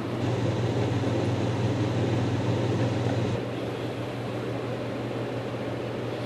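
Steady low hum over an even hiss, dropping a little in level about three and a half seconds in.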